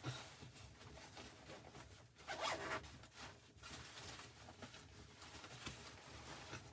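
Faint rustling and small clicks of something being handled close by, with a louder rasping scrape lasting about half a second, two seconds in.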